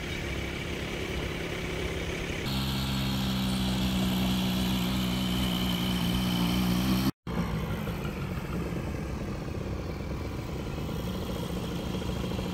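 Quad bike engine idling steadily with a strong low hum, cut off abruptly about halfway through; after that, a vehicle's engine and tyres on a wet road.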